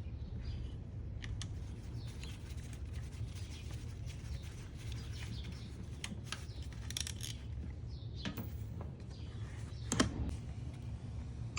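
Scattered light clicks and rattles of small parts or tools being handled, over a low steady hum, with one sharper knock about ten seconds in.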